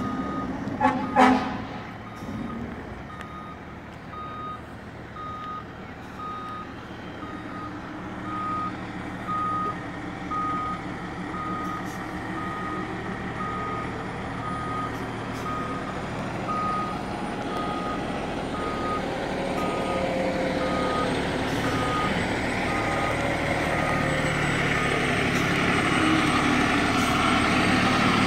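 Fire engine's back-up alarm beeping at an even pace, about three beeps every two seconds, over its engine running and growing louder as the truck comes closer. A short loud burst of noise about a second in.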